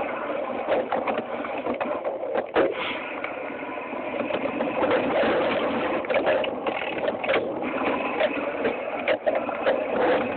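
Mountain bike descending a rough dirt trail: a steady rush of wind and tyre noise on the mounted camera's microphone, with frequent rattles and knocks from the bike and camera mount jolting over bumps, the strongest about two and a half seconds in.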